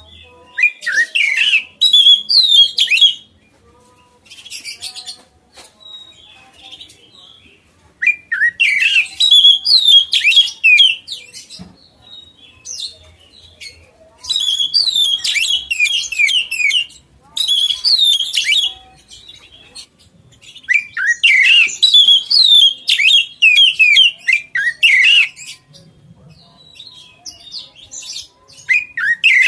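Oriental magpie-robin (kacer) singing in loud bouts of rapid, sweeping whistled notes. There are five bursts of one to four seconds each, with short pauses between.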